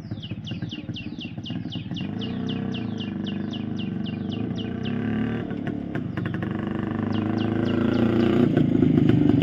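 Yezdi CL-II single-cylinder two-stroke motorcycle riding closer, its exhaust note growing steadily louder as it approaches. A bird calls in quick falling chirps, about four a second, through the first half and again briefly near the end.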